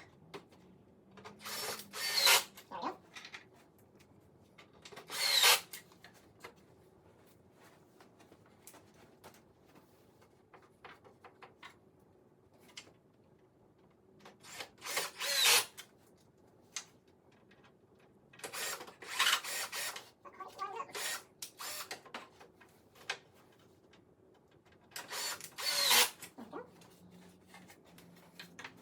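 Ryobi cordless drill driving assembly fasteners into wood in about five short runs of a second or two each, with quieter handling sounds of parts and hardware between them.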